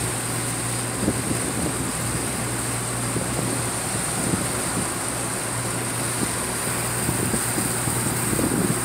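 Steady low drone of a Carver motor yacht's engines while the boat is under way, with uneven rumbling over it.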